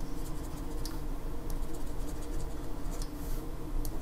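Stylus tapping and scratching on a drawing tablet while words are handwritten: light, irregular ticks over a steady low hum.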